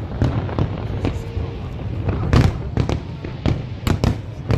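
Aerial fireworks display going off: an irregular string of bangs and crackles, several a second at times, over a continuous low rumble, with the loudest bang about halfway through.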